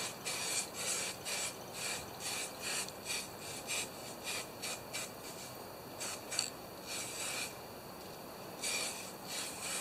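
Aerosol can of etching primer in use: a run of short rasping hisses, about two or three a second, thinning out after about five seconds, with a louder cluster near the end.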